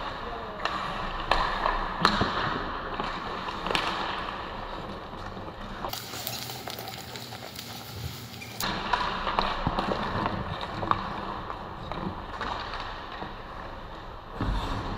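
Ice hockey play on the rink: skate blades scraping and carving on the ice, with several sharp clicks of sticks and puck in the first few seconds. A steady hiss fills a stretch of about two and a half seconds in the middle.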